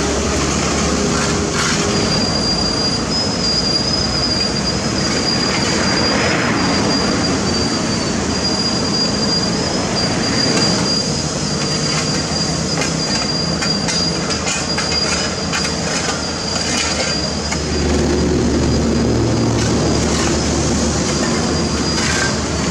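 CAT 226B skid steer loader running under load with its rotary broom sweeper attachment spinning, brushing grit off the road surface. A steady diesel and hydraulic drone sits under a gritty brushing noise, with a thin high-pitched squeal over the top. The low drone grows louder near the end as the machine comes closer.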